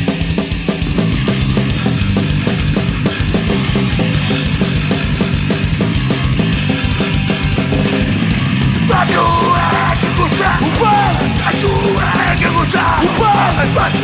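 Punk rock band playing live: fast, driving drums under distorted electric guitars and bass. About nine seconds in, a higher line of bending notes comes in over the top.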